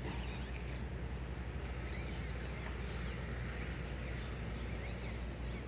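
Outdoor background: scattered faint bird chirps over a steady low rumble.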